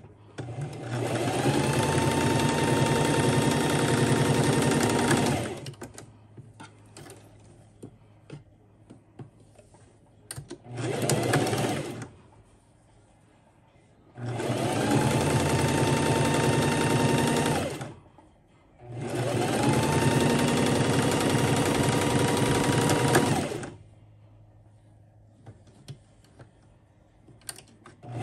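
Singer Classic electric sewing machine stitching a seam in four runs of a few seconds each, the second one short. At the start of each run the motor's whine rises and then holds steady as it gets up to speed. Between runs there are faint clicks.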